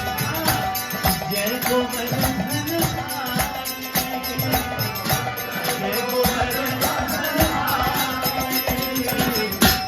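Devotional kirtan music: chanting voices over dense rhythmic percussion, stopping abruptly with a final hit near the end.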